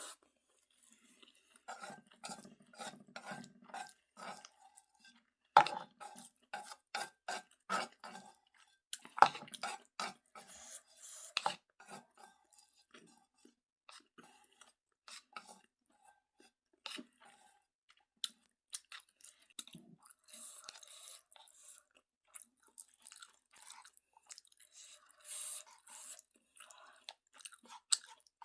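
Close-miked chewing of Jjapaguetti black-bean noodles: runs of short, wet mouth clicks in bursts, with short pauses between mouthfuls.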